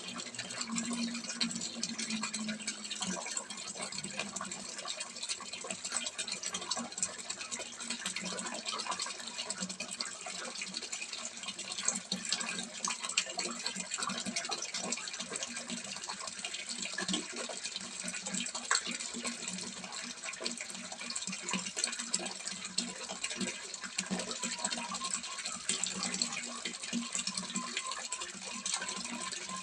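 Water from a small pond spout splashing steadily into a fish pond, a continuous dense trickle and splash.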